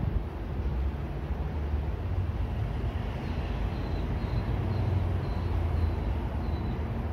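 Low, steady rumble of an approaching freight train's NSW 81 class diesel-electric locomotives, their EMD two-stroke engines working, growing slightly louder as they near. A run of faint, high, short chirps comes about twice a second through the middle.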